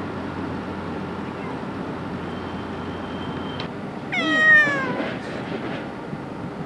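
A street cat meows once, about four seconds in: a short call that falls in pitch at its end, over a steady background hum.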